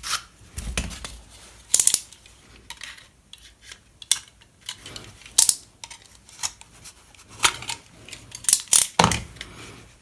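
Irregular clicks and clatter of small tools and objects being picked up and handled on a workbench.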